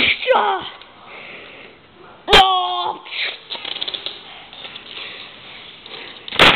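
Non-word vocal sound effects: a falling meow-like cry near the start, then a sharp knock about two seconds in followed by a short held vocal tone, and a loud hissing noise near the end.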